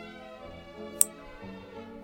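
Soft background music of held, changing notes, with one sharp click about a second in.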